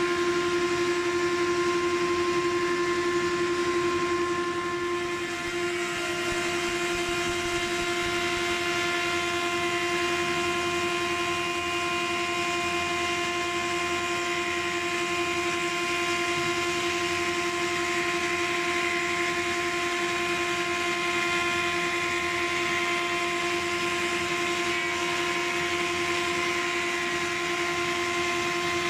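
Timber profiling machine (moulder) running steadily as it profiles a dry wooden beam: a constant machine whine of steady pitch over a broad rushing noise, dipping slightly about five seconds in.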